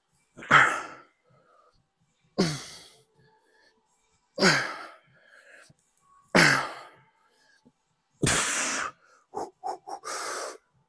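A man's forceful, strained exhalations, one about every two seconds, each starting with a short falling grunt, as he lifts heavy dumbbells through the reps of a set of hammer curls. Near the end comes a longer breath, then a run of quick, hard breaths as the set finishes.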